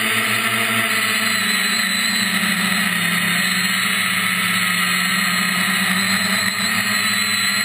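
Brushless motors and propellers of an FPV acro quadcopter, heard from its onboard camera: a steady buzz over a rushing hiss, the pitch dipping slightly about three seconds in and then rising back.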